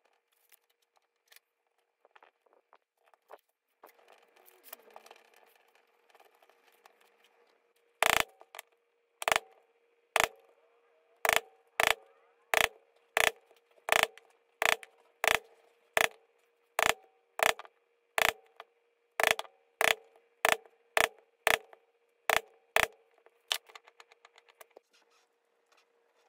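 A metal leather punch struck again and again, driving holes through a baseball glove's synthetic leather into a wooden board: about twenty sharp blows, roughly one and a half a second, starting about eight seconds in. Before the blows there is faint rustling as the leather is handled.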